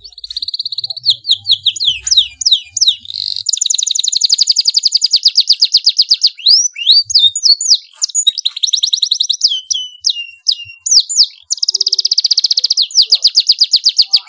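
Domestic canary singing loudly and without pause. Long, fast trills of rapidly repeated high notes alternate with runs of quick, sharply sweeping whistled notes.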